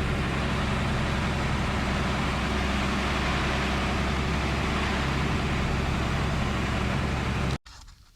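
Unimog truck on the move, its engine running steadily under heavy driving noise, cutting off abruptly near the end.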